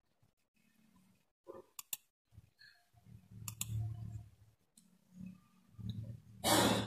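Computer mouse clicks: a few scattered sharp clicks while software on a laptop is operated, over a low hum. A loud rush of noise comes near the end.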